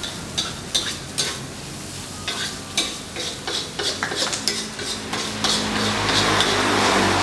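Metal spatula scraping and clacking against a wok during stir-frying, over a frying sizzle that grows louder in the last couple of seconds.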